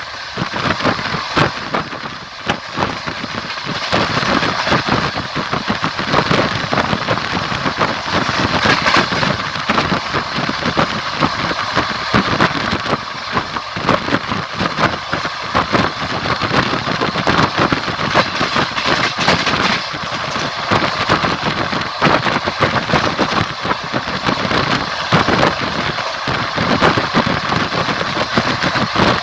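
Moving train's wheels clattering over the rail joints, heard from on board: a steady rumble packed with rapid clacks and knocks.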